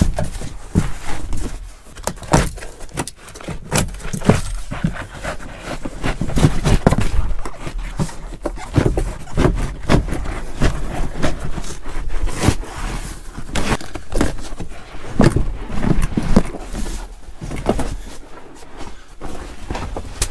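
A truck cab's molded floor carpet with its felt backing pad being pulled up and worked out by hand: irregular scraping and rustling with frequent knocks and bumps.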